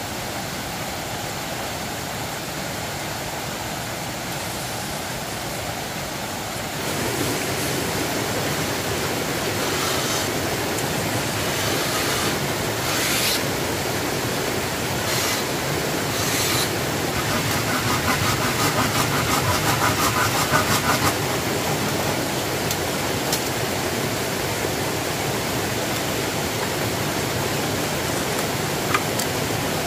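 Steady rushing outdoor noise that steps up in level about seven seconds in, with a few short scraping sounds and, about two-thirds of the way through, a quick run of rhythmic strokes.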